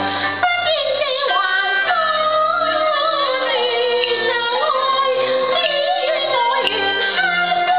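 A woman singing a Cantonese opera song (yuequ) in a high voice, the melody sliding and ornamented, over instrumental accompaniment holding steady notes.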